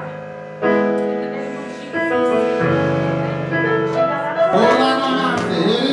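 Church keyboard playing sustained chords, changing to a new chord about half a second in and again partway through, with a voice joining near the end.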